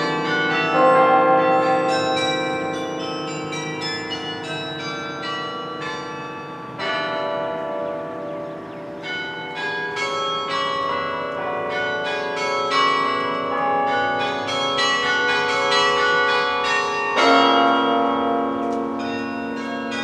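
Carillon bells playing a piece of music: many quick struck notes over lower bells that ring on with their overtones. Near the middle the playing thins out, and a loud low chord is struck near the end.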